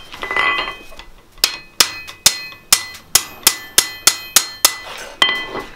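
Hand hammer striking a hot mild-steel flat bar over the anvil horn to bend a blacksmith-made leg vice spring. About a dozen blows come in a steady rhythm, two to three a second, starting about a second and a half in, and each leaves a bright, lingering ring from the anvil.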